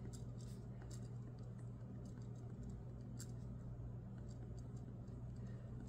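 Pen writing on planner paper: faint scratching strokes with small scattered ticks, over a low steady hum.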